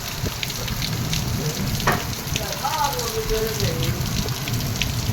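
Steady rain falling, a constant hiss with many single drops ticking. A faint wavering call or voice rises over it near the middle.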